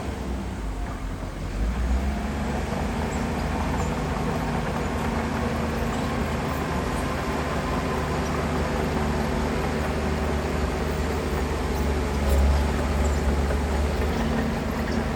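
Heavy diesel engine of earthmoving machinery running steadily, with a low rumble that swells briefly about twelve seconds in.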